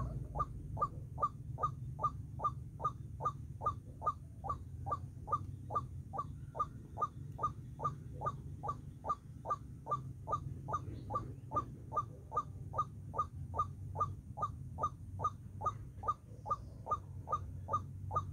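White-breasted waterhen calling: one short note repeated very evenly, a little over three times a second, over a steady low hum.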